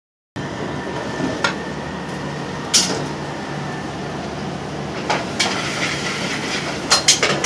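Restaurant kitchen line at work: a steady rush of cooking and kitchen noise, broken by scattered clanks and clinks of metal sauté pans and utensils on the gas range. The loudest clank comes about three seconds in, and a quick run of clinks comes near the end.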